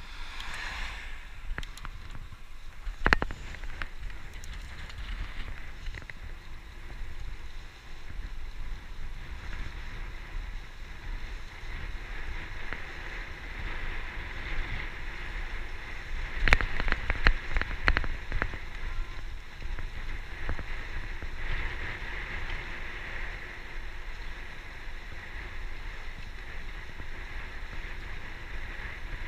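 Wind rushing over the microphone of a camera on a moving road bike, with a steady hiss of tyres on tarmac. A sharp knock comes about three seconds in, and a short run of knocks comes about two-thirds of the way through.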